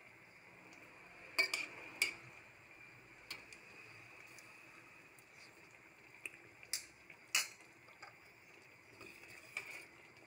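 Pot of mung bean soup simmering in a stainless steel pan, with a faint steady background. A handful of sharp metal clinks of a utensil on the pan are spread through it, and the ladle starts stirring near the end.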